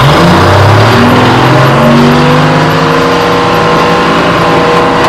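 Detroit Diesel 6-71 two-stroke straight-six in a White 4000 semi truck, running loud and revving up, its pitch rising over the first three seconds and then holding steady.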